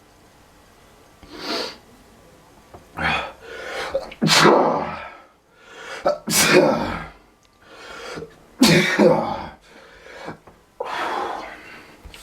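A person sneezing over and over in a fit: about half a dozen sudden loud sneezes a second or two apart, the loudest in the middle.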